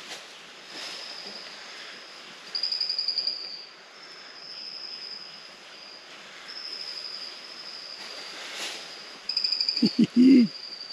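Insects trilling high-pitched, one rapid pulsing call after another, with a louder trill about two and a half seconds in and another near the end.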